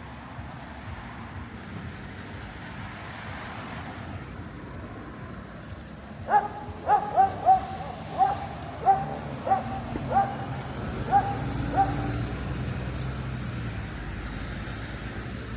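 A dog barking about ten times in quick succession, short sharp barks, over street background noise; a vehicle's low engine rumble swells in under the last barks.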